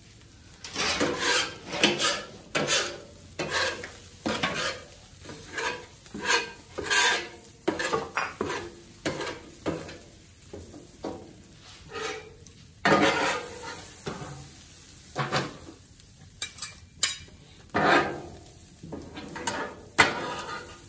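Metal spatulas scraping and turning corn kernels on a steel Blackstone flat-top griddle, in repeated irregular strokes with sizzling between them, ending with the corn scooped off the griddle into a foil pan.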